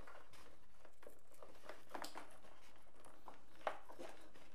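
Light rustling and small clicks of servo wires and plastic plug connectors being handled inside a foam RC jet's fuselage, with one sharper click late on.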